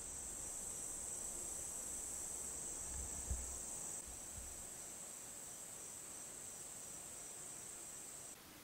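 Chorus of insects such as crickets, a steady high-pitched shrill that drops slightly about four seconds in and stops shortly before the end. A brief low thump comes about three seconds in.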